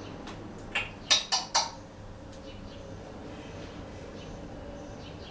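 African grey parrot vocalising quietly: a quick run of four short, sharp syllables about a second in, then faint soft whistles.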